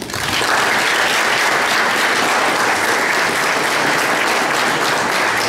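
Audience applauding: a steady clatter of many hands clapping that starts suddenly and keeps up without a break.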